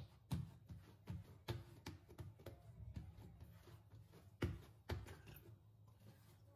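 Hands pressing and patting soft bread dough flat on a granite countertop: faint soft thumps, a few each second, with two louder ones about two-thirds of the way through.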